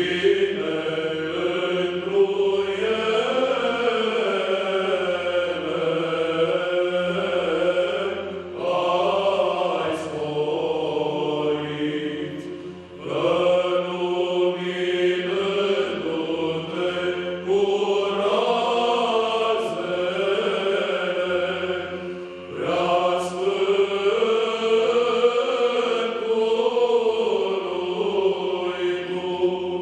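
Men's choir singing Byzantine chant a cappella: a melodic line over a steady held low drone, the phrases pausing briefly about three times for breath.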